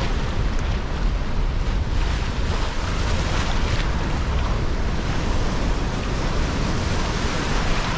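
Sea waves washing and breaking in shallow water at a beach, a steady wash with no separate events, under the low rumble of wind buffeting the microphone.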